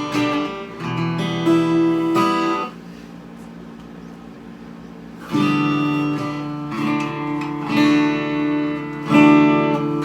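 D&D Django Jr. mahogany acoustic-electric guitar strummed without distortion. Chords ring out, pause for about two and a half seconds, then start again with several more chords.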